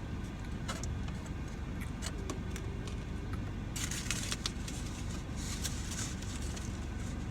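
Food packaging being handled: sharp clicks and two short bursts of crinkly rustling as a queso cup and burrito wrapping are opened and worked, over a steady low rumble.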